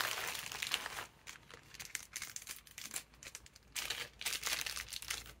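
Small clear plastic ziplock bag crinkling as fingers handle and open it, in irregular bursts, densest in the first second.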